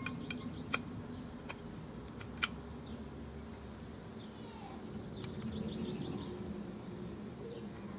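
Small sharp clicks and taps of metal and plastic parts as a gravity-feed sandblast gun is put back together by hand, several close together early and a louder one about two and a half seconds in, over a low steady hum. A faint run of short chirps comes in a little after five seconds.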